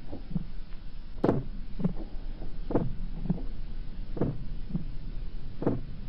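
Heartbeat sound effect: a slow double thump, lub-dub, repeating evenly about every one and a half seconds.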